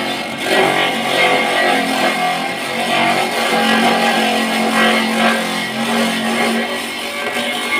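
Plucked-guitar background music over the steady running of a homemade feed chopper machine as it grates a whole papaya.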